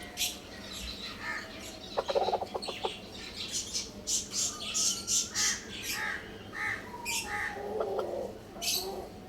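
Many birds chirping and calling together, short high chirps over and over, with a burst of rapid clicks early on and a lower drawn-out call near the end.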